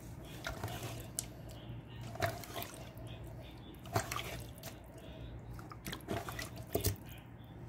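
Wet squishing and dripping of hands rubbing marinade into raw whole chickens in a metal pot, with scattered sharp clicks at irregular moments and a faint steady low hum underneath.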